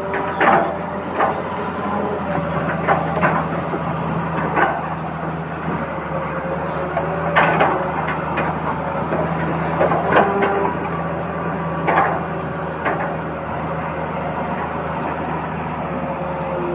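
Toy vehicles being played with: a small motor's steady whir, shifting in pitch now and then, with sharp plastic clicks and knocks every second or two.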